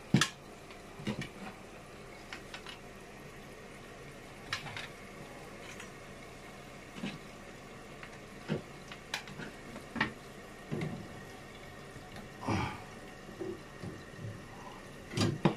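Faint steady running water, typical of a newly installed toilet's tank filling after the supply is turned on, with scattered sharp clicks and knocks of handling.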